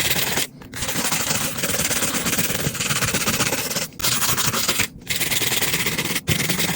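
Brush scrubbing the water-damaged iPhone's circuit board clean: a rapid rasping rub in several spells with short breaks between them.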